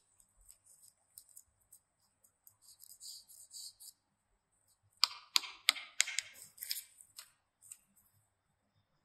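Crisp scallion soda crackers rustling against each other and the basket's paper liner, then a cracker snapping apart in a quick run of sharp, crunchy cracks about five seconds in.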